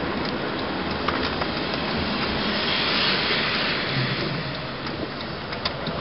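Road noise heard inside a moving car: a steady rush of tyres on the road and the running engine. A hiss swells and fades around the middle.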